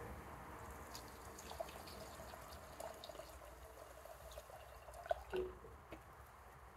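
Faint trickle of liquid poured slowly from a plastic jug into a plastic mixing cup of paint, with a few small drips and ticks, while a paint mix is topped up to its 3-to-1 line.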